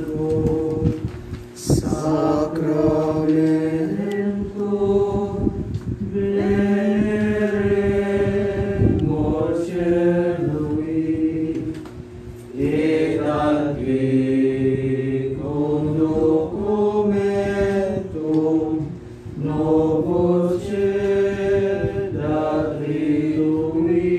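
A slow devotional hymn sung in long, held, chant-like phrases, with brief pauses between phrases.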